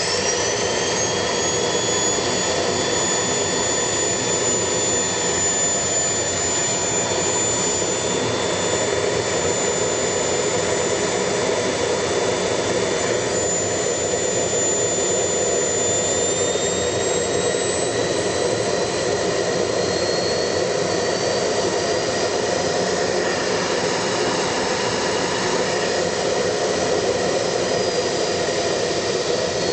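AEG T2 Cyclone O2 vacuum cleaner's 1600-watt Domel MKR2451 motor running at full power: a steady rush of air with a high whine. The whine finishes climbing in the first moment after switch-on, and in the second half one whine slowly rises in pitch.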